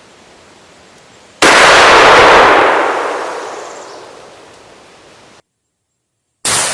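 GForce Filthy Pheasant 20-gauge over-and-under shotgun fired once, a loud blast that rings out and echoes away over several seconds. A second shot goes off near the end.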